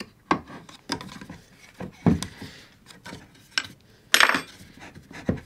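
Handling knocks and clinks of an acetal CNC Y plate with wheels on aluminium C-beam extrusion being moved about on a workbench, with a brief clatter a little after four seconds in.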